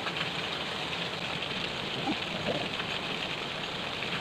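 Steady hiss of flowing river water.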